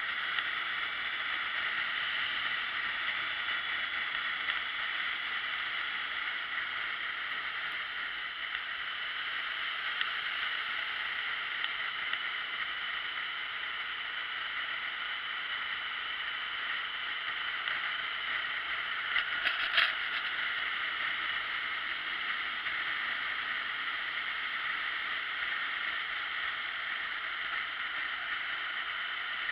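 Steady rushing wind noise on the microphone of a camera mounted on a moving motorcycle, with the engine hardly standing out. A few short knocks or clicks come about twenty seconds in.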